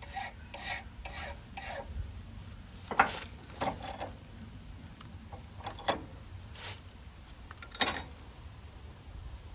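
Hand file rasping across the edge of a sawmill ruler pointer to trim it down. Quick strokes come about twice a second at first, then a few spaced-out strokes follow.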